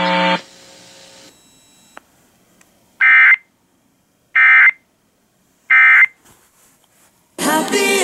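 Emergency Alert System end-of-message (EOM) data burst played over a radio: three short bursts of warbling digital tones about a second and a half apart, closing out the state's monthly EAS test. The station's programming starts again near the end.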